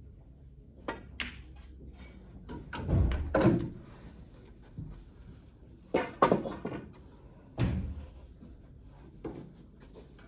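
Snooker balls clicking sharply as shots are played, several knocks spread out with some coming in quick pairs, and a few heavier thuds around three and seven and a half seconds in.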